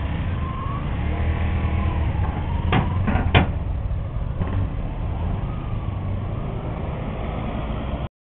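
Motorcycle engines idling and pulling away, a steady low drone with revs rising and falling, and a couple of sharp clicks about three seconds in. The sound cuts out suddenly near the end.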